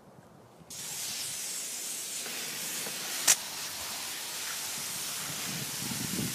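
Garden hose spraying water onto a wheelbarrow load of biochar, a steady hiss that starts suddenly under a second in, with a single sharp click about halfway through. The char is being wetted down to keep its dust down.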